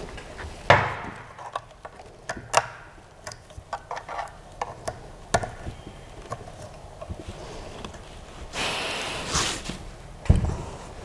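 Handling and fitting together the metal frame parts of a Creality CR-6 SE 3D printer kit: scattered knocks and clicks of the aluminium gantry against the printer base, with a rustling, scraping stretch late on and a heavy thump near the end.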